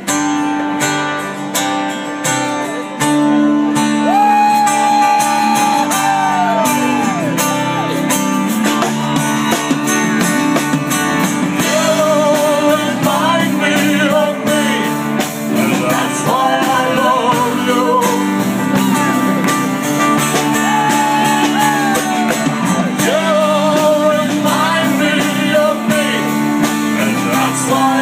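Live blues-rock band playing the instrumental intro of a song: guitars and drums, kicking in sharply at the start, with a lead line that slides and bends in pitch over the chords.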